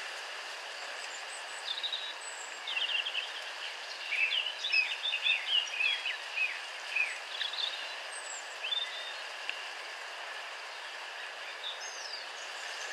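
Small birds chirping and singing over a steady outdoor hiss, with a busy run of quick chirps and trills about four to seven seconds in.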